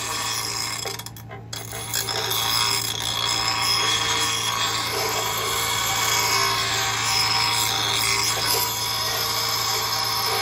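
Bench grinder running with a steady motor hum while a steel garden-tool blade is pressed to the spinning abrasive wheel to sharpen it. The result is a continuous harsh, ringing metal grinding. The grinding eases briefly about a second in, then runs on louder.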